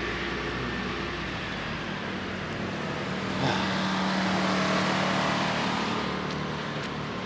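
A car drives past on a snowy street: its engine hum and road noise swell about halfway through and fade away toward the end.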